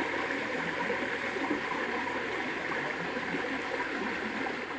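Shallow forest stream flowing, a steady rush of running water.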